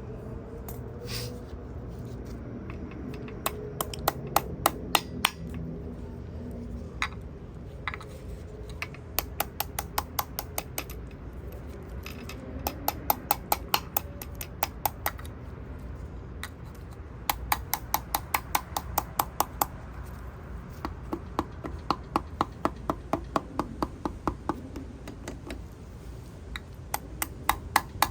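Runs of rapid, sharp taps, several a second, in bursts of a few seconds: the front crankshaft main seal being tapped into the engine block of a Volvo B230 four-cylinder.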